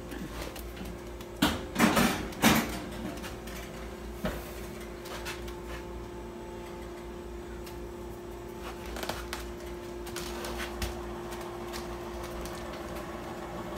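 A glass baking dish clattering against the rack and door of a countertop toaster oven as it is loaded, a few sharp knocks about two seconds in. Afterwards a steady low hum with a few faint clicks.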